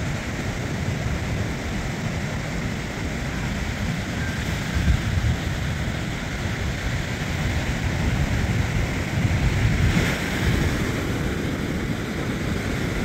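Sea surf breaking on a sandy beach with wind buffeting the microphone: a steady rushing noise, heaviest in the low end, swelling in gusts about five seconds in and again around nine to ten seconds.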